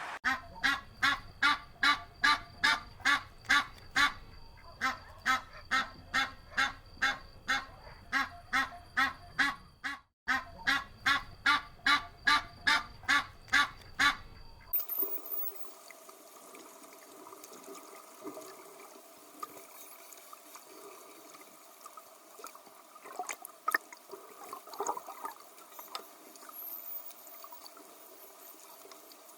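A duck quacking in long fast runs, about three quacks a second, with short breaks, for roughly the first half. After that the calling stops and only scattered soft calls and faint high chirps remain.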